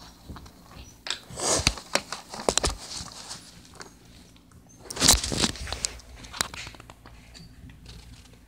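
Rustling and clicking handling noises in two bursts, one about a second in and another about five seconds in.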